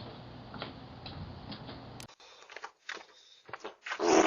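Steady background hiss with faint ticking, a sharp click about two seconds in, then near the end a loud fart begins, picked up by a Ring doorbell's microphone.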